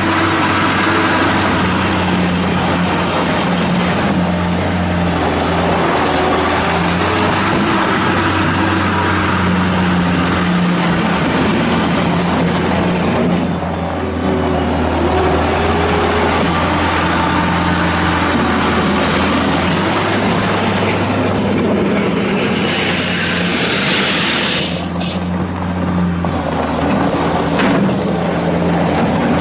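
Skid steer loader's 52 hp diesel engine running steadily, its note shifting and dipping at times as the machine works, with extra hiss and rising and falling whine around two-thirds of the way in.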